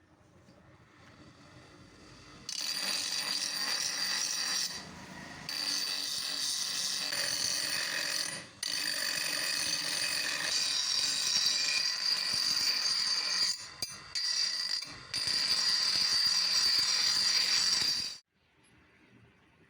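An abrasive power tool working metal: a steady, high-pitched scraping hiss that starts about two and a half seconds in, breaks off briefly a few times, and cuts off suddenly near the end.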